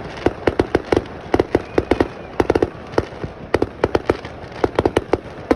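Fireworks going off in a rapid barrage of sharp bangs and cracks, several a second, typical of a display's finale.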